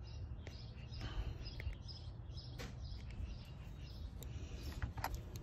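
Faint handling noise: a few small clicks and scrapes as a fingernail works at the seal on a fuel injector to open a gap, over a low steady background rumble.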